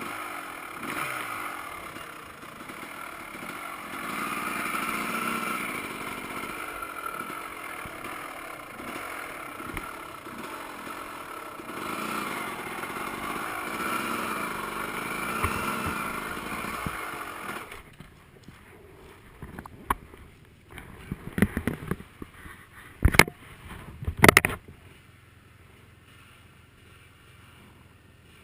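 Dirt bike engine running on a trail, rising and falling with the throttle. About two-thirds of the way through the engine sound drops away, followed by a run of sharp knocks and scrapes, the loudest near the end.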